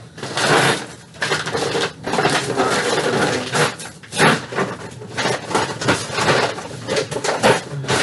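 Hands rummaging among boxes and bags: continual rustling and crinkling broken by small clicks and clatters.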